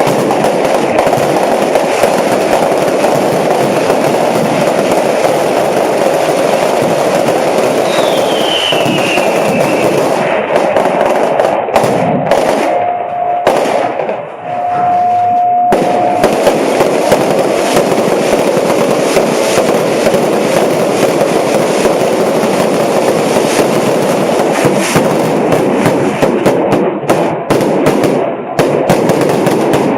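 A dense, continuous barrage of fireworks and firecrackers crackling and popping, with a falling whistle about eight seconds in. Around the middle the crackle thins briefly under a steady tone, then picks up again. Near the end it breaks into more separate bangs.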